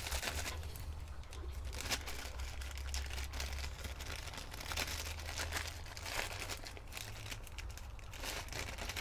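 Clear plastic parts bag being unwrapped by hand, crinkling and crackling with many small rustles, over a low steady hum.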